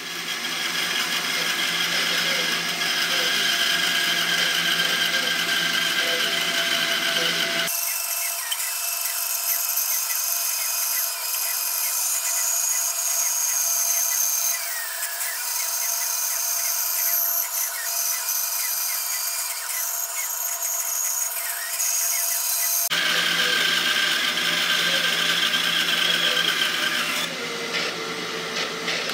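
Bandsaw running and cutting a curve through a thick block of wood. The sound changes abruptly about eight seconds in, losing its low end, and switches back about fifteen seconds later.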